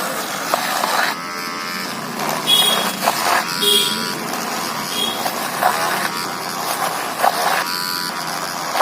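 Small DC motor of a homemade mini drill buzzing with a whine, its bit grinding into cardboard; the pitch and loudness shift several times as the load on the bit comes and goes.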